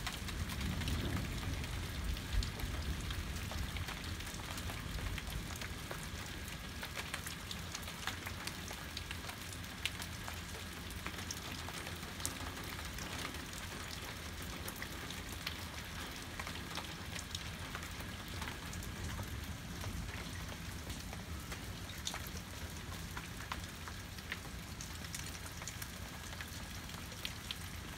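Steady thunderstorm rain falling, with many small sharp drop ticks over an even hiss; a low rumble in the first few seconds.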